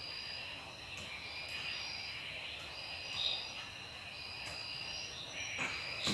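Insect chirping in repeated high-pitched trills, each about a second long with short gaps between. A few soft clicks and paper rustling come near the end.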